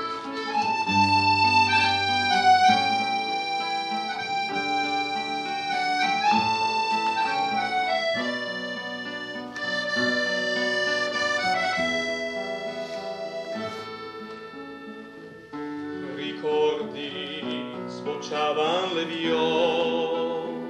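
Instrumental introduction played by a small live ensemble with strings: steady held chords that change every second or two under a melody line, with a wavering line entering near the end, before the voice comes in.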